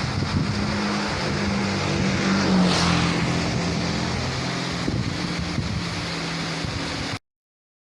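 Waterfall rushing steadily, with a low droning hum through the middle that swells about two and a half seconds in. The sound cuts off suddenly about seven seconds in.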